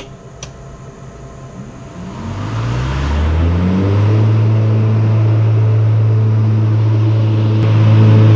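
Electric blade motors of a battery-powered Mean Green mower spinning up as the PTO engages: a hum rises in pitch about two seconds in, then holds as a loud, steady motor whine.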